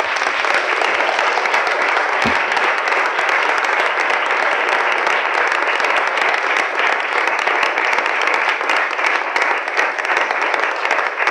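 Audience applauding steadily, a hall full of people clapping.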